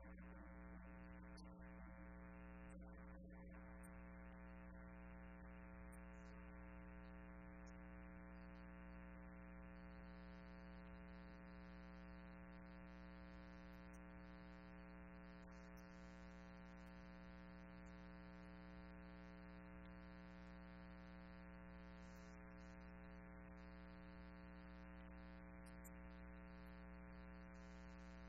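Near silence: a faint, steady electrical hum and buzz on the audio feed, unchanging throughout.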